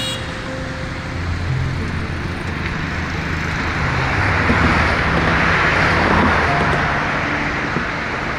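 Road traffic on a multi-lane highway: cars and motorcycles driving past with a steady wash of tyre and engine noise. It swells louder about halfway through as vehicles pass close, then eases off.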